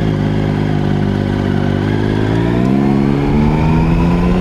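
Three-cylinder engine of a Triumph Sprint ST1050 motorcycle running in first gear at low revs through a mini roundabout. About two seconds in, the revs climb as it accelerates away, then hold, over low wind rumble on the helmet microphone.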